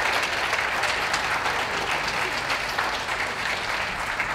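Crowd applauding: a dense, steady patter of many hands clapping.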